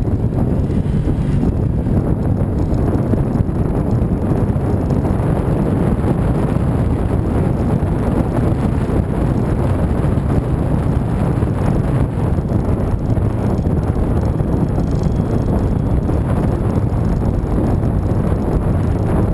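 Steady wind rushing over the microphone of a moving motorcycle, with the bike's engine running underneath.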